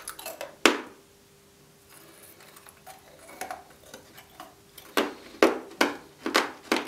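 Loud crunching of hard gingerbread being bitten and chewed. A sharp crack comes near the start, then a run of crisp crunches about two or three a second in the second half.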